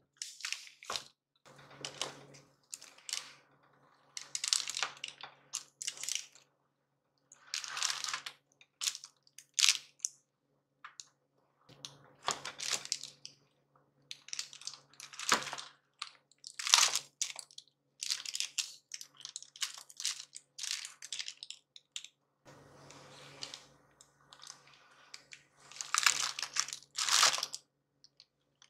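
Homemade Eatmore bar slab of chocolate, peanuts and crisped rice cereal being cut with a knife and broken apart by hand on parchment paper: irregular crunching and crackling with some paper crinkling.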